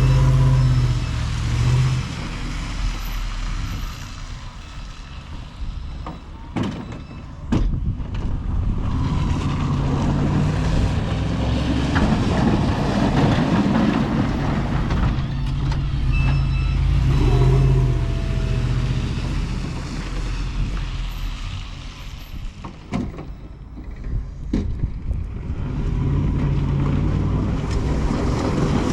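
Snowplow pickup truck's engine running, swelling and easing as it works, with a few sharp knocks, twice close together about a quarter of the way in and once more later.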